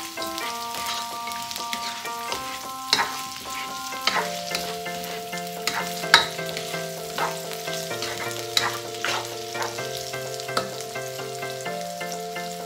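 Prawns, onions and garlic sizzling in hot oil in a wok, stirred with a spatula that scrapes and clicks against the pan about once or twice a second.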